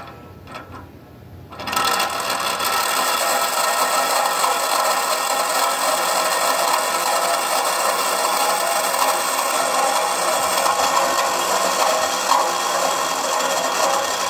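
HO scale model railroad turntable running, its electric motor and gear drive turning the bridge with a steady mechanical whir that starts about two seconds in. It is an old 1990s unit that the owner says needs new gears and fresh lubricant.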